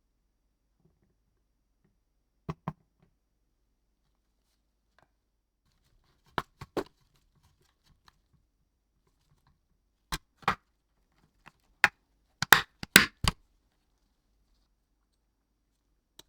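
Scattered sharp clicks and taps of small parts and tools being handled, with a quick run of louder clicks about twelve to thirteen seconds in.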